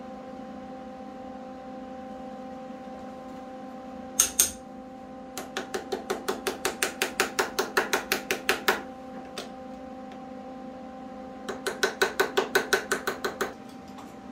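A small hammer tapping on a thick-walled steel pipe held in a bench vise: two sharp knocks, then two runs of quick, light, ringing taps at about seven a second, each lasting two to three seconds. A steady hum runs underneath.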